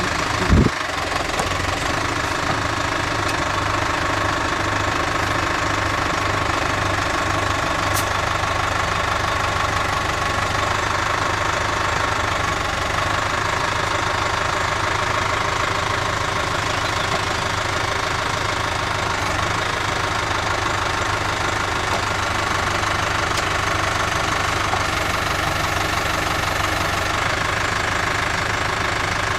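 Engine of the machine working the MOLE tree transplanter, running steadily, with one short knock about half a second in.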